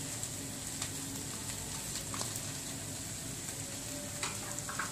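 Grated radish going into a nonstick wok of potatoes in frying masala, with the pan sizzling steadily. A few light knocks and scrapes of a wooden spatula against the pan come through, several of them near the end.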